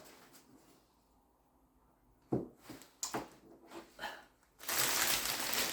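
Handling of gift-basket crafting materials: a few light taps and clicks, then about a second of dense rustling or crinkling noise near the end.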